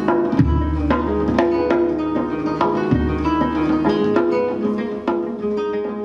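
Acoustic guitar played live, a quick run of plucked notes, with deep hand strikes on a def (Turkish frame drum) about half a second in and again near three seconds.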